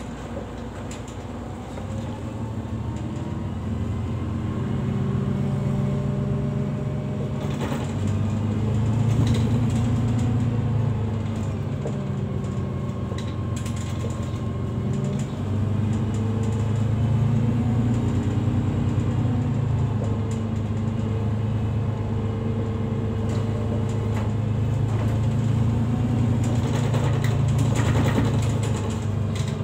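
City bus engine and drivetrain heard from inside the passenger cabin while the bus drives along. The engine hum grows louder about two seconds in and then swells and eases with the driving, under a faint whine that shifts in pitch and occasional interior rattles.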